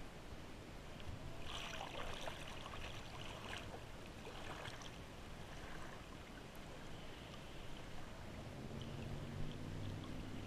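Small waves lapping and gurgling against a camera at the water's surface, with louder splashing in the first few seconds. About eight seconds in, the low steady hum of an idling boat engine comes in.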